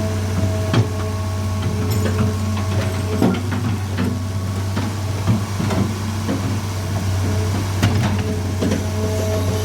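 Excavator engine running steadily, with scattered sharp knocks and clanks from the track work.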